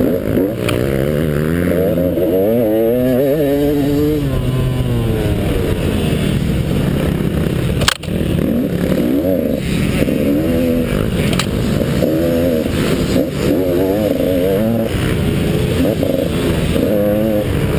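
Dirt bike engine heard from a helmet camera under hard riding, revving up and down with each throttle and gear change. There is one sharp knock about eight seconds in.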